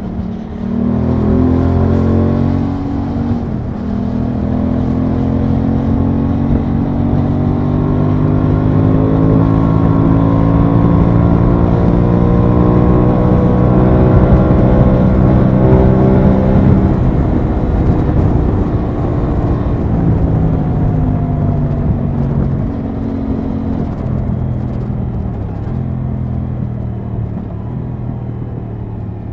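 Aprilia Tuono 660's parallel-twin engine under way: the revs climb, drop at a gear change about three seconds in, then rise slowly to about seventeen seconds, where the throttle closes and the engine settles to a steady cruise. Wind rush runs under the engine throughout.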